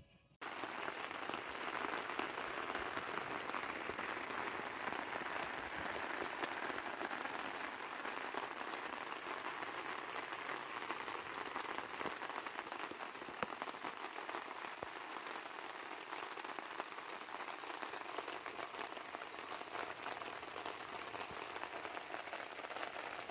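Steady rain falling, with many small ticks of individual drops striking close by. It starts abruptly about half a second in.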